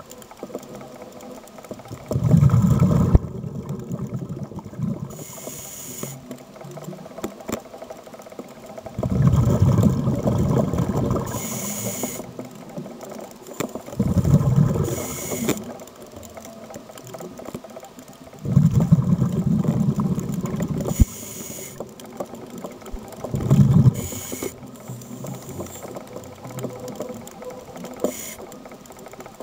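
A scuba diver breathing underwater through a regulator: about five bubbling exhalations, each one to three seconds long, alternating with short hissing inhalations.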